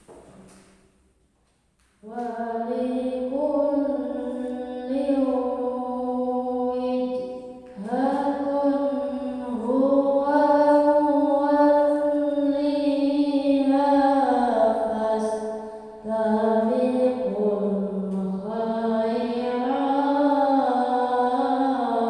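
A boy reciting the Qur'an in melodic qiro'at style into a microphone, in long held phrases with ornamented turns of pitch. The phrases are parted by short breath pauses, and the recitation begins about two seconds in.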